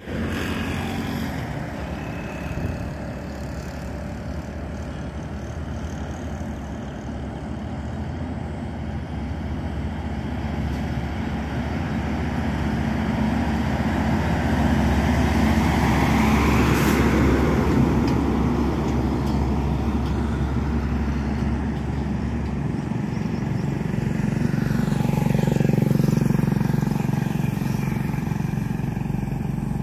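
Heavy diesel trucks, among them a Hino FM2P LPG tanker, driving past with a low steady engine drone. The sound builds to a peak as a truck passes close about halfway through, then again near the end.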